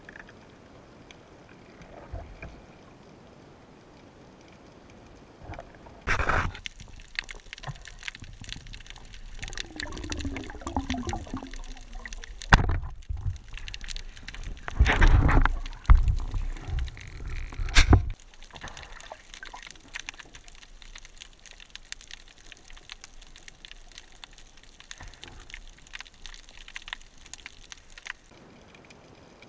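Underwater water noise through a camera housing: a low hiss for the first few seconds, then rushing and gurgling water with scattered clicks and several sharp knocks, quieting again near the end.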